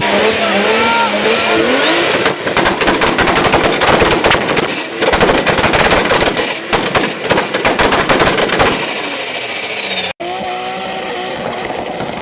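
Turbocharged car engine revving: the turbo spools up with a rising whistle, then a fast rattling chatter of turbo flutter runs for several seconds before the whistle falls away. About two seconds before the end it cuts to another engine running with a steady tone.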